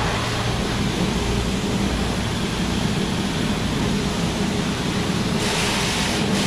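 Pressure washer spraying water into a car's engine bay: a steady hiss over a low hum, the hiss getting brighter about five seconds in.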